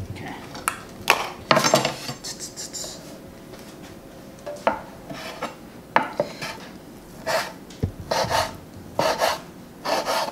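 Kitchen knife cutting deli turkey slices on a wooden cutting board: irregular sharp knocks and scrapes of the blade on the board. A plastic deli bag crinkles near the start.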